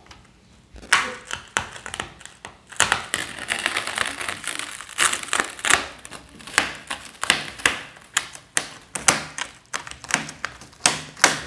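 Clear plastic stretch wrap being torn and peeled off a folding table: a dense, irregular run of crinkling and sharp crackles that starts about a second in.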